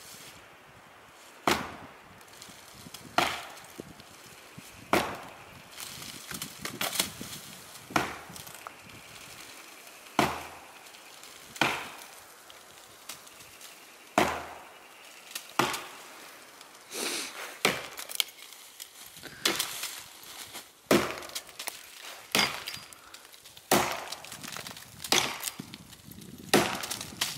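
A Norlund tomahawk-style axe biting into the hard, dry wood of a standing dead oak, in a long series of sharp chopping strikes. The strikes come one every second or two at first and faster toward the end.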